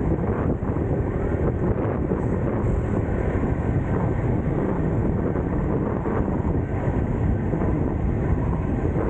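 Steady wind noise on the microphone over a low rumble of moving traffic or road noise.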